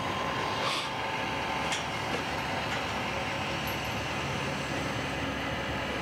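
Ghost Controls dual automatic gate opener's electric actuator arms running, swinging a pair of metal farm gates open in a steady mechanical hum, with a couple of light clicks in the first two seconds.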